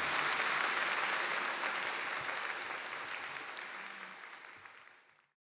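Concert audience applauding, the applause fading gradually and then cutting off to silence near the end.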